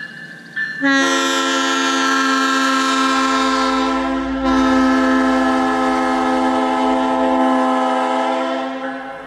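Nathan PK3 locomotive air horn with P1, P4 and K1L bells sounding one long blast of a steady multi-note chord, about eight seconds long. It starts abruptly about a second in, dips briefly near the middle, then comes back and fades out near the end. The K1L bell is meant to sweeten the chord.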